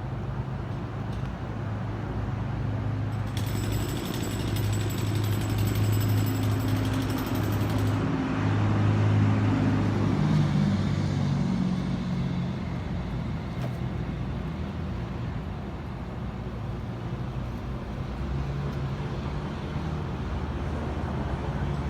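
Urban traffic: vehicle engines running with a steady low hum whose pitch shifts a little near the middle. There is a few seconds of harsh, high rattling noise about three to eight seconds in.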